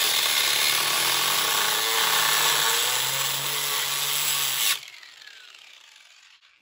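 Angle grinder with a cutting disc slicing through a radiator's metal finned core. Nearly five seconds in it is switched off suddenly, and the disc winds down with a falling whine that fades away.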